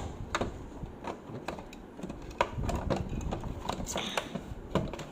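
Irregular plastic clicks and knocks from a cuckoo clock being handled while its battery is fitted.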